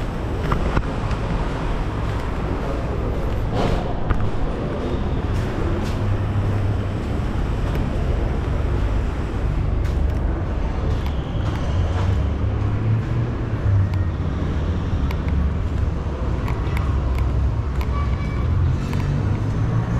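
Steady low rumble of urban outdoor ambience, with a few faint clicks and knocks.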